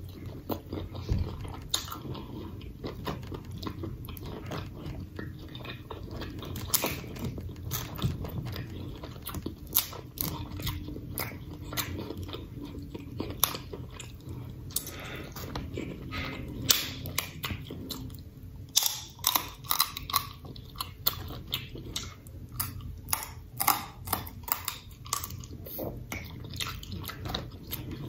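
Close-up eating sounds from a seafood boil: wet chewing and lip smacking. Sharp clicks and cracks of snow crab legs being broken and picked by hand come thickest in the second half.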